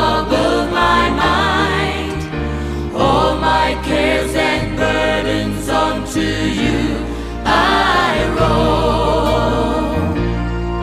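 Background music: a Christian worship song, with sung vocal phrases over sustained keyboard and bass.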